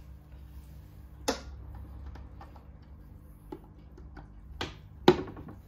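Fidelity HF30 valve amplifier giving a steady low hum, with a series of sharp clicks and pops as an audio cable's plug is worked into its input socket. The loudest pop comes about five seconds in.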